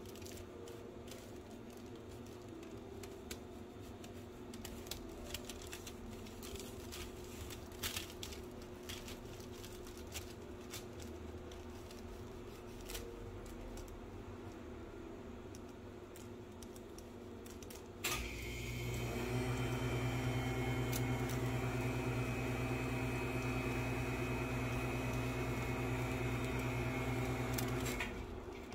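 Faint scrapes and light taps of a spatula spreading soft cream over a sponge sheet. About two-thirds in there is a click, and an electric appliance motor hums steadily for about ten seconds before cutting off.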